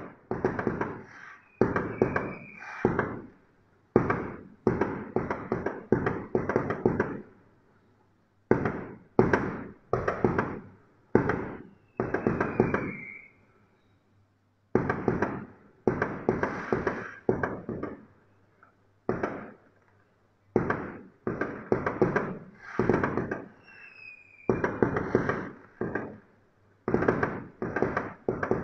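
Aerial fireworks bursting in rapid volleys of bangs, each volley followed by a brief lull of a second or so before the next. A short high whistle is heard three times among the bangs.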